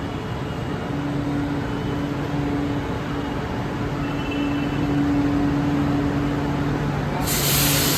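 Chennai Metro train standing at the platform, its equipment giving a steady low hum, then a sudden loud hiss of released air about seven seconds in, as before the train pulls out.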